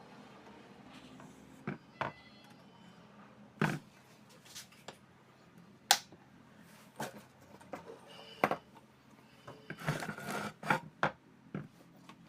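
Irregular clicks, taps and knocks of hand tools and small parts being handled while a 50-watt LED flood light is worked on, with a sharp click about six seconds in and a quick run of taps near the end.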